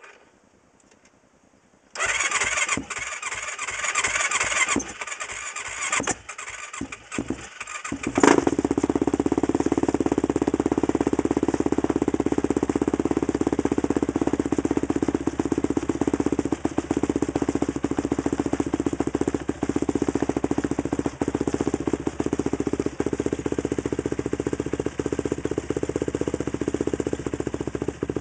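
Yamaha YFZ450 quad's single-cylinder four-stroke engine being cold-started at about 25°F. It cranks and sputters unevenly for about six seconds, catches with a loud burst about eight seconds in, then settles into a steady cold idle.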